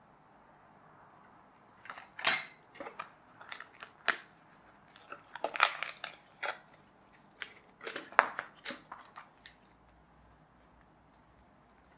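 Die-cut card pieces of a toy plane kit being pressed out of their sheet by hand: an irregular run of sharp snaps and crackles as the card tabs break, starting about two seconds in and stopping a couple of seconds before the end.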